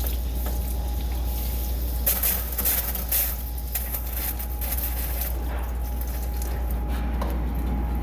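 Metal clinks, scrapes and clicks of tools and plumbing fittings being handled while a water line on a commercial dishwasher is unhooked, with a short spell of harsher scraping or hissing about two seconds in, over a steady low hum.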